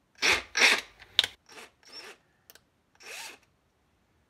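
A quick run of short rubbing and scraping sounds, about eight in three seconds, from hard objects being handled. They stop about three and a half seconds in.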